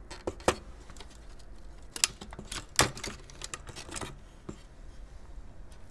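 Sharp clicks and knocks of plastic and metal parts as a modem's circuit board is worked loose and slid out of its aluminium heatsink enclosure. The loudest clicks come about half a second in, at about two seconds and just before three seconds, with a quicker run of lighter clicks after that.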